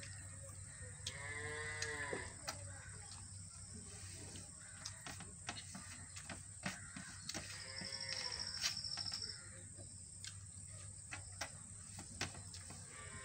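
Two drawn-out animal calls, each about a second long and rising then falling in pitch, over scattered soft clicks of fingers working rice against a steel plate.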